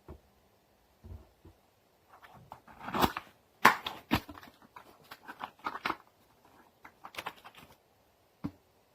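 Packaging being handled and opened while unpacking a mini guitar amp and its accessories: irregular crinkling, tearing and rustling, with a few sharper handling clicks, loudest about three to four seconds in.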